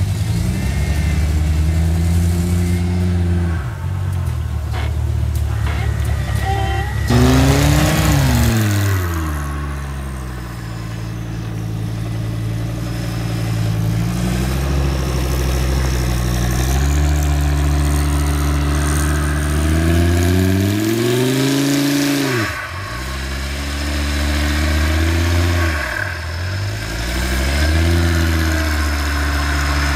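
Turbocharged Volvo engine of an off-road buggy running and revving up and down several times, with sudden drops in revs about two-thirds of the way through.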